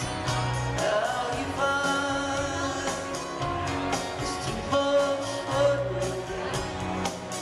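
A string band playing live, with fiddle, acoustic guitar, mandolin, bass and drum kit over a sung lead vocal, heard from the audience through a small camcorder microphone.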